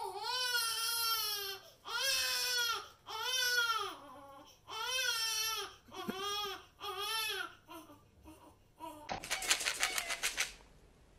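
A high, drawn-out wailing voice cries over and over, each cry about a second long and rising then falling in pitch, the cries getting shorter towards the end. A short harsh, rasping burst follows about nine seconds in.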